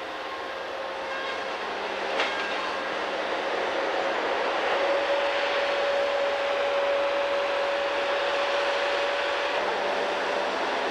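Timberjack 618 feller buncher working: its diesel engine and hydraulics running steadily under load, with a whine that grows louder about four seconds in and holds. One sharp click about two seconds in.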